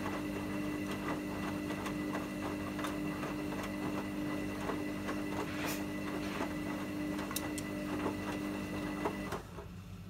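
Hoover front-loading washing machine in the main wash: the drum motor runs with a steady hum while the wet shirts tumble, with irregular soft knocks and splashes. The motor stops about nine seconds in as the drum pauses between tumbles.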